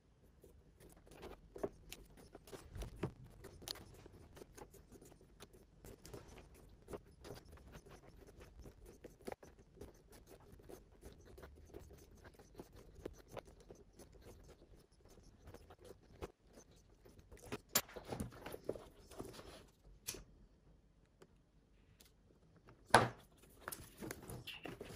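Hand-stitching a leather bag handle: faint scratching and rustling as thread is drawn through the stitch holes and the leather is handled, with scattered small clicks. Louder scuffs come in a cluster about two-thirds of the way through, and a sharp knock near the end as the bag is moved.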